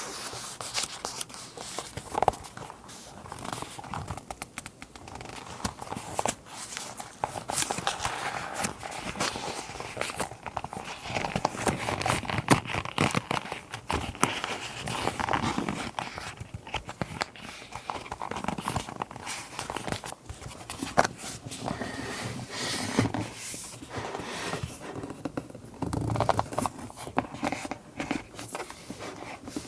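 Close-up rustling and crinkling of paper and scrapbook materials being handled, with many scattered small taps and clicks.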